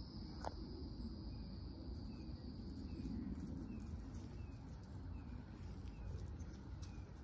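Insects droning steadily in high continuous tones, with a short chirp repeating about every two-thirds of a second and a low rumble underneath.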